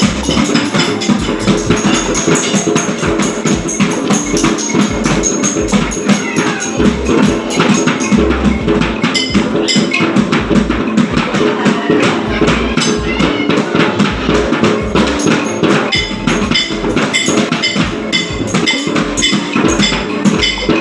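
A group of children banging and shaking percussion all at once: drum-band drums, metal lids and bowls, wooden clappers and bamboo shakers. It makes a dense, unrhythmic clatter of knocks and rattles with low drum thuds mixed in.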